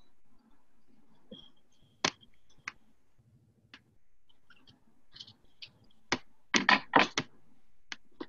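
Scattered small clicks and knocks from handling a computer and desk, with a cluster of louder knocks about six and a half to seven seconds in.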